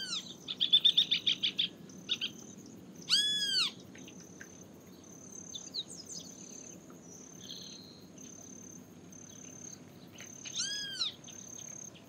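Great kiskadee (bem-te-vi) calling: three drawn-out, arched, rasping calls, one at the start, one about three seconds in and one near the end, with a fast chattering series just after the first. A thin high tone comes and goes in the background.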